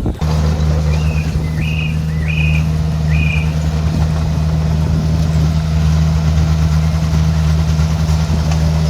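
Bulldozer's diesel engine running steadily with a deep hum, with four short high chirps in the first few seconds.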